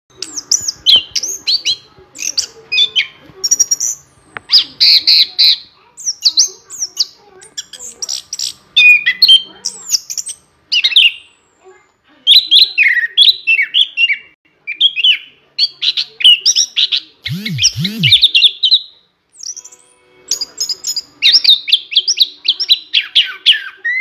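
Chestnut-capped thrush singing a fast, varied rolling song of rapid whistled and chattering phrases, in long runs with a couple of brief pauses.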